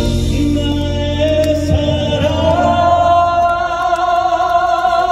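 Live song with a male vocalist over band accompaniment; about two seconds in he settles into one long held note with vibrato.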